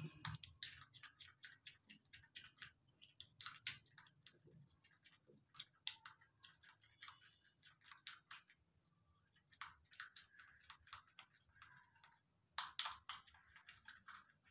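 Small plastic spoon stirring a thick cream paste in a small glass bowl: faint, irregular clicks and scrapes of the spoon against the glass.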